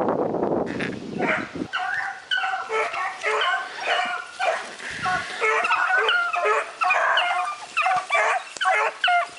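A pack of rabbit hounds baying in short, repeated, overlapping calls, about two a second, as they run a rabbit's track. For the first second and a half a loud rushing noise covers them, then cuts off.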